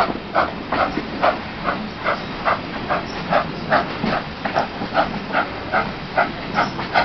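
Steam exhaust beats of GWR Manor-class 4-6-0 7828 Norton Manor working along the line, an even chuff about two and a half times a second, heard from a carriage window along the train over a steady rumble of the wheels on the track.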